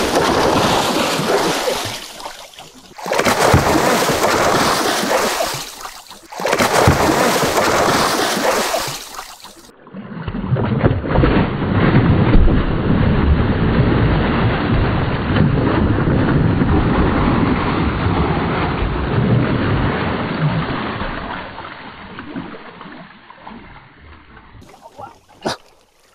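Water splashing and churning hard alongside the hull of a small outrigger fishing boat, in loud surges with two brief lulls, then dying away near the end.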